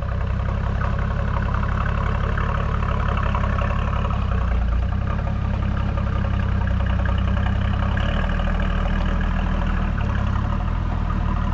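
Toyota 80 Series Land Cruiser engine running low and steady at crawling speed, its note shifting a few times as it works the 4WD up a steep rock step.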